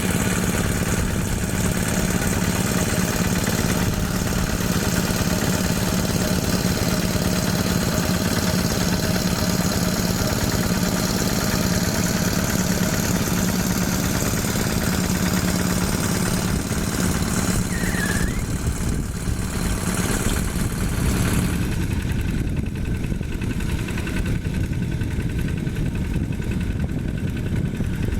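Single-cylinder Yanmar diesel engine of a Quick G1000 hand tractor running steadily. About three-quarters of the way through, the higher clatter fades and a lower, even running remains.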